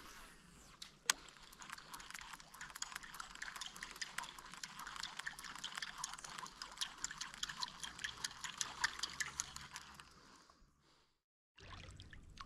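Faint water dripping and trickling: a dense, irregular patter of small drips that cuts off abruptly about ten and a half seconds in.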